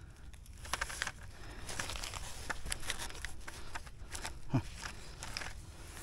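Footsteps crunching and crackling through dry fallen leaves on a forest floor, irregular, with one louder thump about four and a half seconds in.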